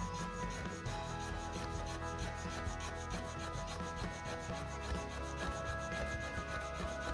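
Fire plough: a stick rubbed rapidly back and forth along a groove in a board of seasoned pigeon wood (Trema orientalis), a steady scraping rub in an even rhythm of about five strokes a second. The friction is working up hot wood dust toward an ember.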